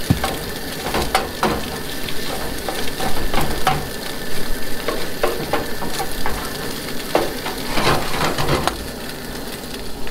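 Sausage and eggs sizzling in a metal skillet, with a spatula stirring, scraping and tapping against the pan in frequent irregular clicks.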